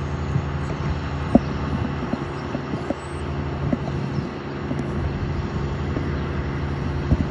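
An engine running steadily with a low hum, with a couple of short clicks, about a second in and near the end.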